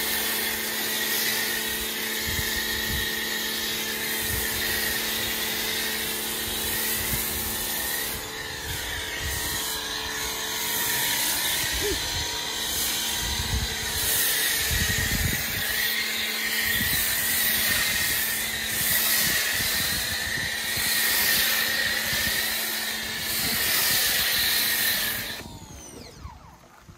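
Ryobi 1900 PSI electric pressure washer running with a steady hum while a Chemical Guys foam cannon hisses, spraying shampoo foam onto the car. The spraying stops abruptly near the end.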